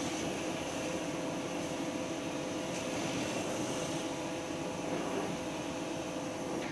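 A steady mechanical drone with a few steady tones running through it, unchanging, ending abruptly.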